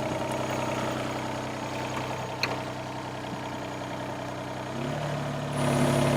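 Kobelco SK17SR mini excavator's diesel engine idling steadily, with one light click about midway. Near the end the engine note steps up and grows louder.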